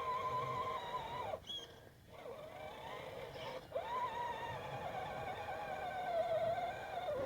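Electric motor and gears of a scale RC 6x6 truck whining as it drives, the pitch wavering with the throttle. It winds down and stops about a second and a half in, then spins up again, with another brief cut near four seconds.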